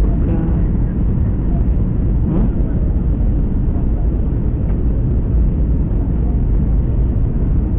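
Airliner cabin noise heard from a passenger seat: a steady, loud, deep rumble of engines and airflow.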